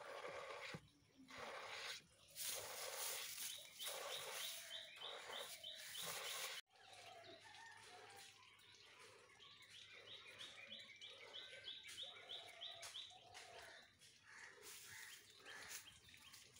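Milk squirting from a cow's teats into a plastic jug during hand milking: a hiss with each pull, repeated every second or so, stopping suddenly about seven seconds in. Then quieter, with a bird chirping in quick runs.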